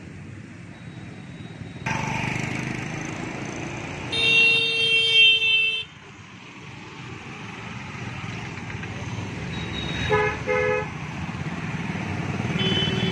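Road traffic passing, with a vehicle horn: one long blast about four seconds in lasting nearly two seconds, then two short toots about ten seconds in, and another horn starting near the end.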